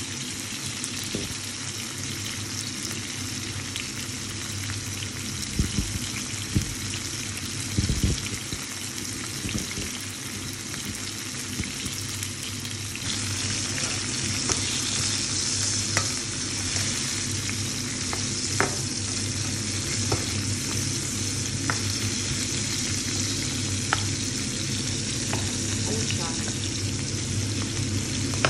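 Asparagus and red onion sizzling in hot oil in a pan, with scattered sharp knocks of a utensil against the pan as the vegetables are stirred. The sizzle gets louder and brighter about halfway through, as the vegetables are pushed about.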